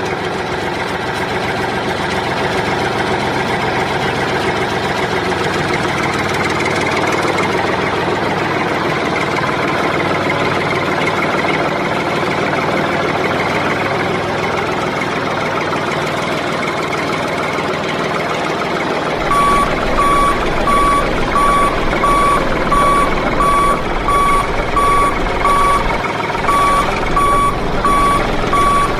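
A small earth-moving machine's motor runs steadily. About two-thirds of the way through, a reversing alarm starts beeping over it at an even pace.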